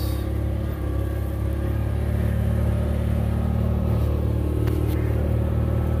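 Kubota RTV500 utility vehicle driving, its engine running at a steady low hum.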